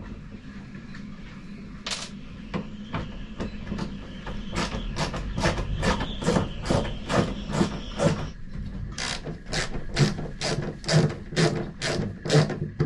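Screwdriver backing screws out of a brass hinge on a wooden cabinet door, a run of short, sharp clicks at about two to three a second starting around four seconds in.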